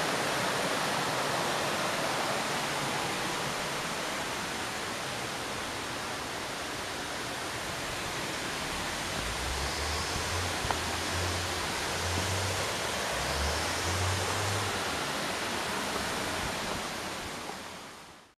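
Steady rushing of a small woodland waterfall cascading down a rocky stream, with a few low thuds around the middle. The sound fades out just before the end.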